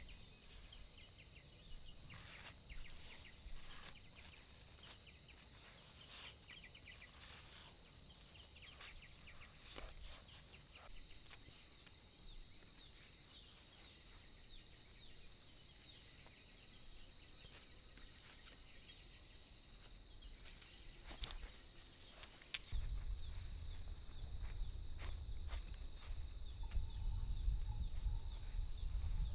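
A steady high-pitched insect chorus, with scattered light clicks and taps of green bamboo poles being handled and tied. About three-quarters of the way in, a low rumble sets in and grows louder.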